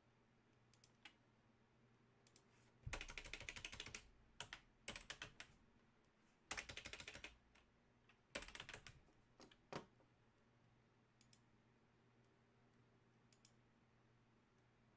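Computer keyboard typing in several short runs of rapid key clicks, with a few single taps between and after them.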